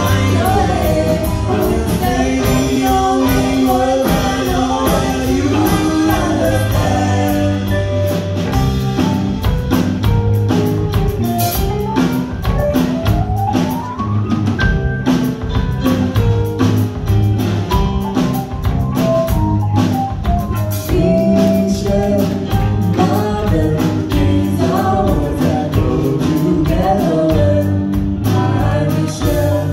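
A live band performs a song with singing, over a drum kit, keyboard, guitar and saxophones, heard from the audience in a hall.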